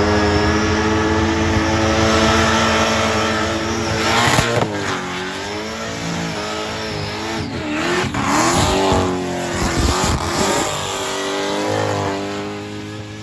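Supercharged LS V8 engine revving hard, held high at first, then dropping and blipped up and down. Sharp exhaust bangs go off several times as it fires shots. It dies down near the end.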